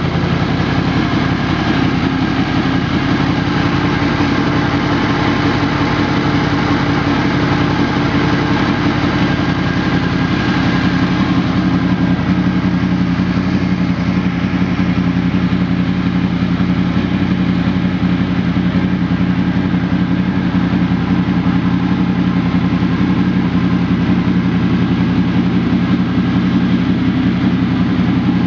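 Honda VFR800 Interceptor's V4 engine idling steadily, its tone deepening slightly about twelve seconds in.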